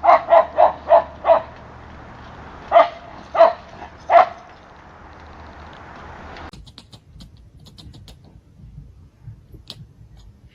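A dog barking: five quick barks, then a short pause and three more spaced slightly further apart, over a steady hiss. The hiss cuts off abruptly about two-thirds of the way in, leaving faint scattered clicks.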